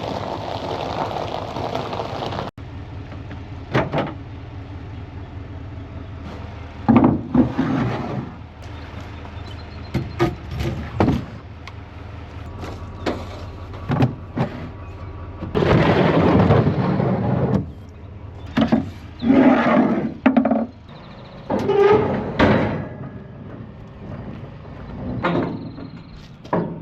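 Mini skid steer's engine running steadily while it works logs, with repeated knocks, clunks and thuds of wood and the grapple scattered throughout.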